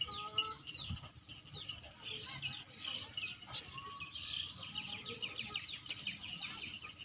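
Birds chirping in a dense, continuous twitter of many rapid short calls, with a few lower calls about a second in.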